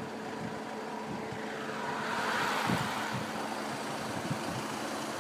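Vehicle driving along a road: a steady engine hum under tyre and air noise, which swells for a moment about two to three seconds in.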